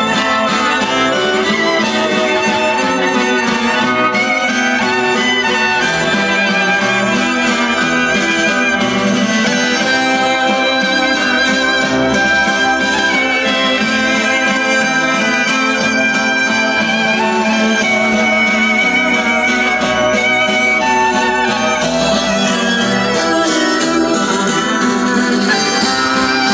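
Music led by violin, with guitar.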